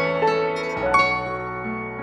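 Soft instrumental music: a few single notes on piano and nylon-string guitar, each ringing out and dying away, slowly getting quieter.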